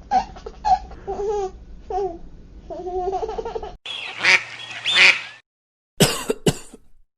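A baby giggling for nearly four seconds, then a duck quacking for a second and a half, then after a short gap a couple of short coughs.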